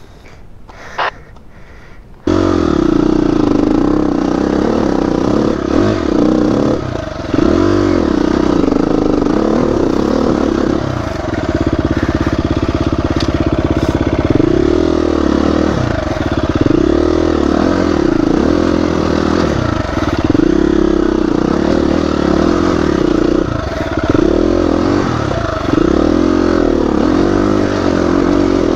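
Dirt bike engine close to the microphone, starting loud and abruptly about two seconds in, then running hard with revs rising and falling again and again as the bike is ridden.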